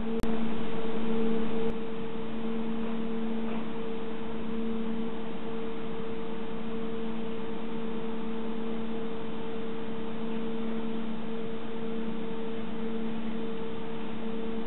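Electric coolant pump of the heating system running with a steady hum, two even tones over a light hiss, while coolant and air bubbles are pushed through the bleed hose.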